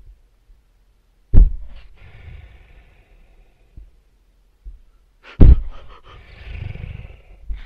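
Two loud roars, about four seconds apart, each starting suddenly and trailing off into a rumbling growl over a second or two.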